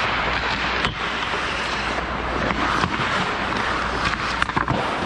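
Ice hockey play heard from inside the goal: skates scraping the ice and a steady rink hum. There is a sharp knock about a second in, then a quick run of stick and puck clicks near the end as players crowd the crease.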